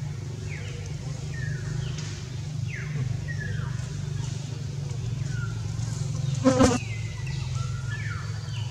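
Steady low buzzing hum, like a flying insect, with short falling chirps repeating every half second or so. One brief, loud pitched call stands out about six and a half seconds in.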